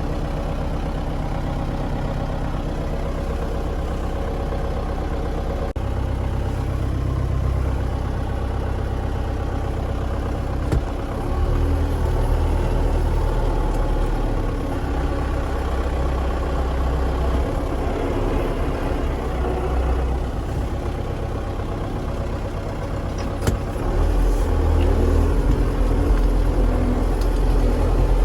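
Farm vehicle's engine running steadily, growing louder in steps about six, eleven and twenty-four seconds in.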